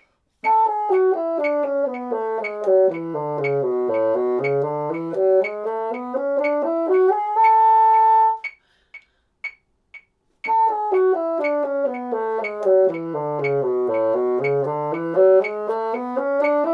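Bassoon playing a quick slurred two-octave A major scale in 16th notes, running down from the top A to the low A and back up, then holding the top note. After a pause of about two seconds it plays the scale again. A metronome ticks about twice a second throughout.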